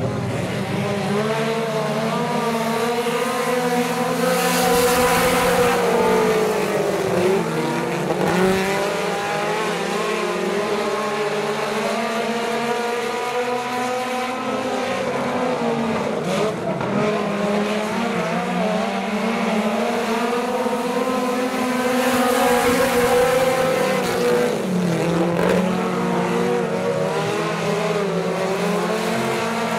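Four-cylinder mini-stock race cars running laps on a clay oval. Their engines drop in pitch off the throttle into the turns and rise again as they accelerate out. The sound swells louder twice as the cars pass close, about four seconds in and again around twenty-two seconds.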